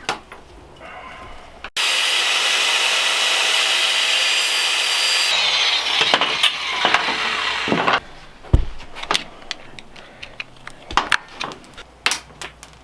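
A power tool grinding through a link of a new Honda Africa Twin drive chain to shorten it, a steady loud cutting noise that starts abruptly and stops after about six seconds. Metal clinks and knocks of the chain being handled follow.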